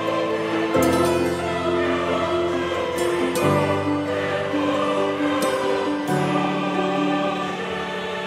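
Background music of slow, sustained chords that change about every two to three seconds.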